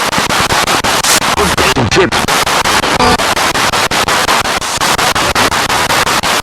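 Spirit box radio sweeping rapidly through stations: loud static chopped into quick, even bursts several times a second, with brief snatches of broadcast voices and music caught between the steps.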